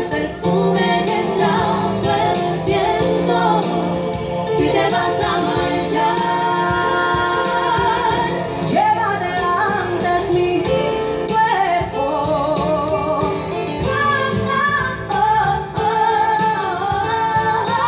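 Live band music: female voices singing held notes with vibrato over keyboard accompaniment and a steady beat.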